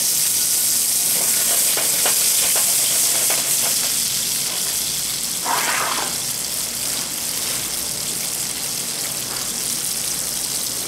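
White seabass fillets sizzling steadily as they pan-fry in an olive oil blend, with faint crackles and one brief louder burst of sizzle a little over halfway through.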